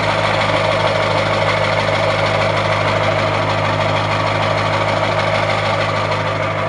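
Ford 7.3-litre Power Stroke V8 turbo-diesel idling steadily just after a cold start, through a 4-inch turbo-back exhaust with dual 5-inch stacks. The owner calls its cold starts nasty and puts this down to bad injectors.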